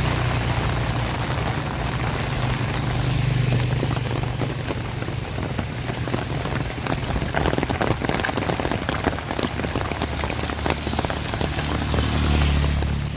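Heavy rain falling, with many separate drops striking close by. A low steady hum sits under it for the first few seconds and again briefly near the end.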